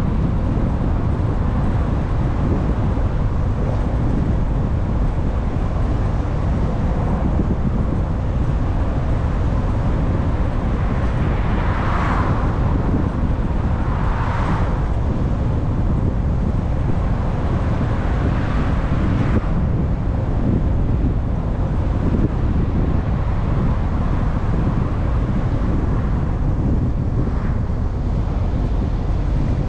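Steady low rumble of tyre and wind noise from a moving car, with passing vehicles briefly swelling and fading about twelve and fourteen seconds in and again a few seconds later.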